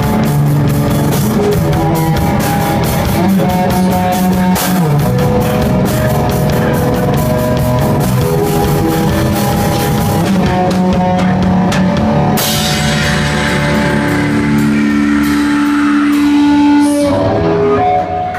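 Live loud rock band with distorted electric guitars, bass and drum kit playing. Steady drumming fills the first half. After a crash about two-thirds of the way through, long held guitar chords ring out as the song ends.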